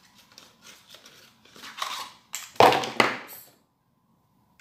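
A small paperboard box being opened and a plastic pump bottle slid out of it: crackling and scraping of cardboard and plastic, loudest about two and a half to three seconds in.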